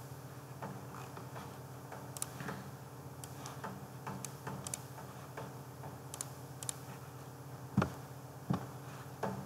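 Computer mouse clicking now and then, a dozen or so short sharp clicks, with two louder knocks near the end, over a steady low hum.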